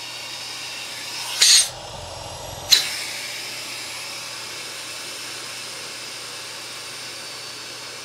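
Miele Complete C3 canister vacuum motor running steadily while its hose is sealed by a suction gauge and the machine is set to its lower suction settings. A short loud burst of noise comes about a second and a half in, and a sharp click just before three seconds.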